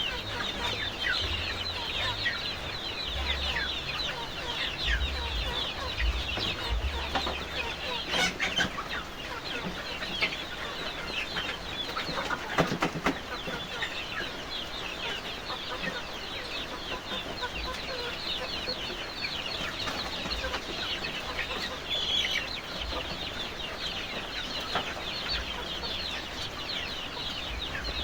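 A flock of village chickens (ayam kampung) clucking and calling, with many short calls overlapping constantly. There is a brief louder noise about halfway through.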